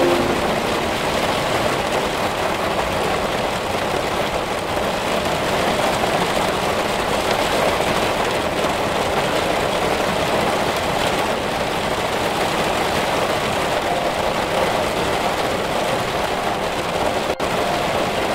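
Heavy rain falling on leaves and trees, a steady, even hiss.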